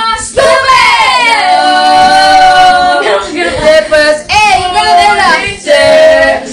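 Women singing loudly along in karaoke, with a long held note a little over a second in and another near the end.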